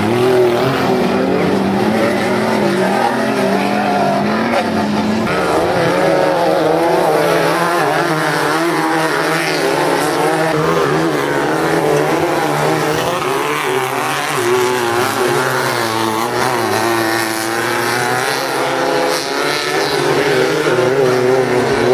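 Several off-road race buggy engines running hard on a dirt track, their overlapping pitches rising and falling as they rev and pass.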